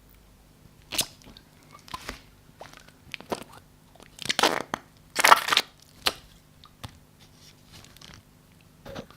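Slime being squeezed and pressed by hand, making a string of short, irregular noises; the two longest and loudest come a little past the middle.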